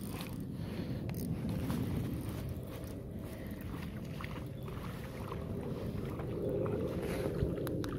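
Fishing reel being wound in against a hooked fish, with steady low rumbling handling noise and a few faint clicks.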